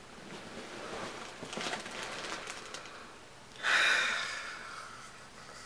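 A person breathing quietly with small rustles, then a long breathy exhale about two-thirds of the way through that fades out over a second or so.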